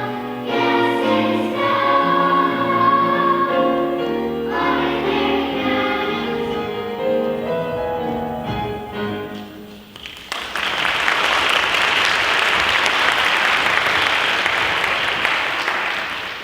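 A choir singing a song to its final held chord, then audience applause breaking out about ten seconds in and dying away near the end.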